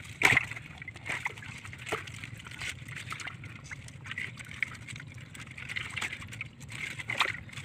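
Irregular wet splashes and slaps of caught tilapia being handled and strung on a cord in shallow water in the bottom of a wooden boat, with one louder splash just after the start.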